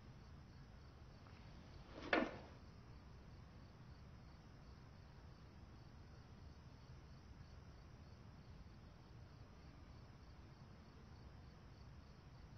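Faint night ambience of crickets chirping steadily over a low hum, with one brief sharp noise about two seconds in.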